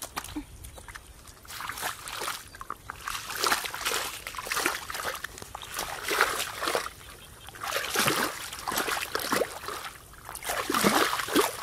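Feet in socks splashing and sloshing through shallow muddy paddy water, in repeated uneven steps and stamps.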